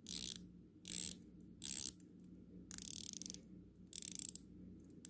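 Ratcheting dive bezel of a Davosa Ternos Black Suit watch turned by hand in five short turns, each a quick run of clicks. The action is nice and audible and solid, with next to no back play.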